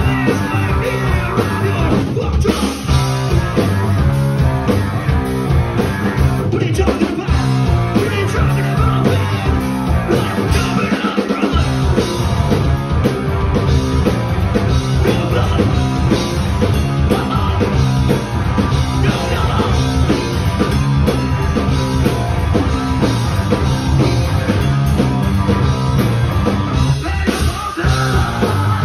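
A hardcore band playing loud, live: electric guitars and a drum kit.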